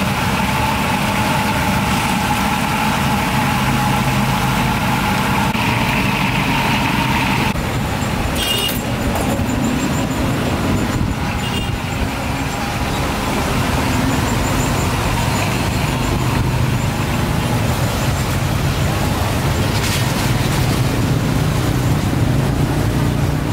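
Motor traffic on a street, with a vehicle engine running close by as a steady low hum under a constant haze of road noise. The sound shifts about seven seconds in, and there are a few brief clicks.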